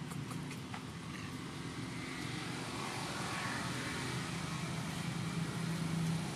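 Steady hum of a motor vehicle's engine running, growing slightly louder in the last couple of seconds, with a few faint clicks in the first second.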